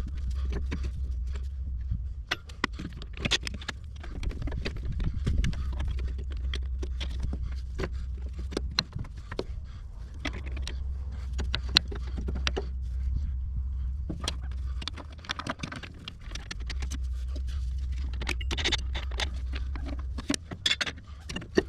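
Irregular clinks and knocks of hand tools on metal, from a bracket being unbolted on the underside of a Cat 312 excavator. A low rumble comes and goes under them.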